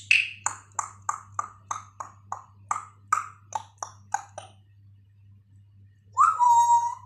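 African grey parrot imitating a phone ringtone: a quick run of short, sharp electronic-like pips, about three a second, for roughly four seconds. After a short pause comes one louder, held whistled note near the end.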